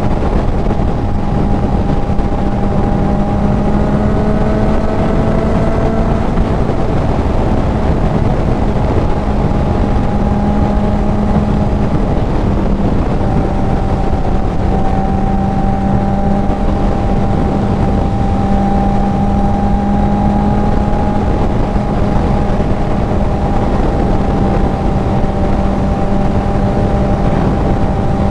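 Kawasaki Z900's inline-four with a CS Racing full exhaust at a steady cruising speed: an even engine drone that holds nearly the same pitch throughout. Heavy wind rush on the helmet-mounted mic runs under it.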